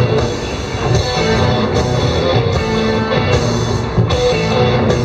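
Rock band playing live: electric guitars, bass and drum kit with a steady beat.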